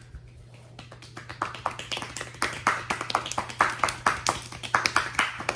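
Two people clapping their hands in an uneven patter, faint at first and louder after about two seconds. A steady low hum runs underneath.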